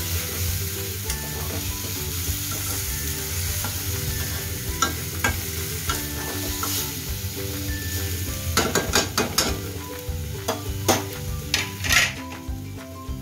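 Prawns and coconut masala paste sizzling in a metal kadai while a spatula stirs them. Near the end comes a run of sharp knocks and scrapes as the spatula strikes the pan.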